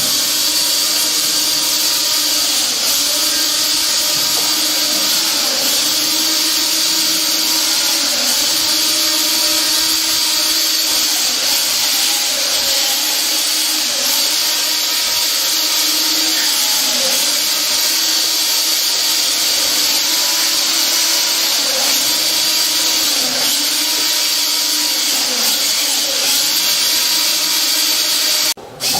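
Steady loud whirring machine noise with a strong hiss, with faint tones underneath that dip and rise in pitch now and then. It breaks off for a moment near the end.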